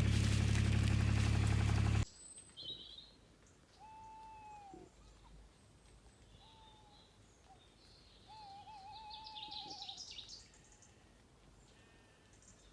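A loud steady sound cuts off about two seconds in. Then a tawny owl hoots in the dark: a falling note, a short note, and a long quavering note, with faint chirps of other birds.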